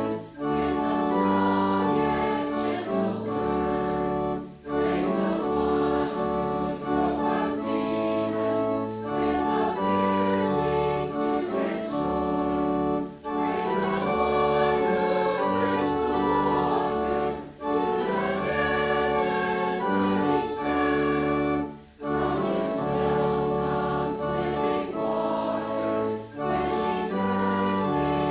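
A hymn sung by many voices with organ accompaniment, in phrases of about four seconds separated by brief breaths.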